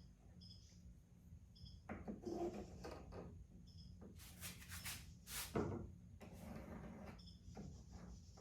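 Faint workshop handling sounds of wood and tools: scattered light knocks and rubs, with a few short scraping sounds between about four and five and a half seconds in.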